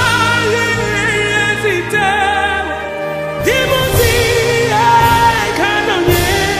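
Background music: a voice singing a melody with vibrato over a sustained bass accompaniment, with a brief lull a little past halfway.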